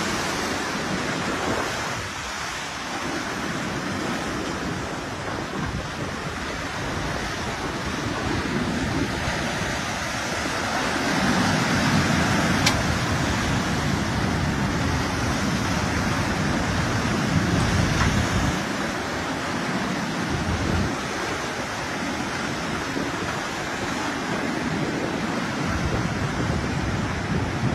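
Churning seawater rushing inland as a flood surge over the land, a steady wash of turbulent water that swells louder for several seconds near the middle.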